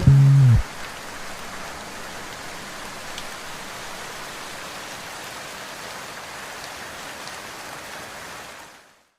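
Steady rain falling, with the last note of a song dying away just at the start; the rain fades out to silence near the end.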